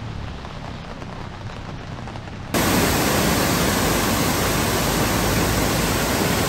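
Light rain falling, then about two and a half seconds in a sudden switch to the much louder, steady rush of Silver Waterfall.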